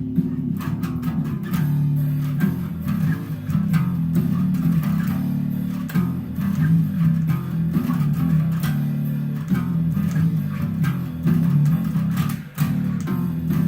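Electric bass guitar playing a song's chorus bass line, note after note, along with a recording that has drums.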